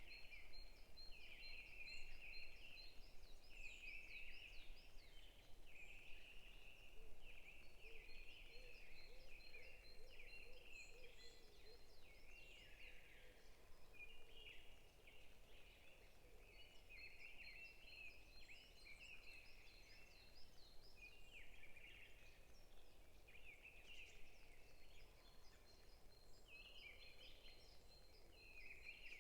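Faint forest birdsong: short chirping phrases repeating every second or two, with a thin high trill coming and going every several seconds.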